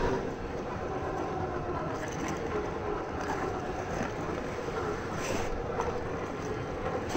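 Traxxas TRX-6 RC crawler's electric motor and geared drivetrain running steadily, a low whir with a few light clicks.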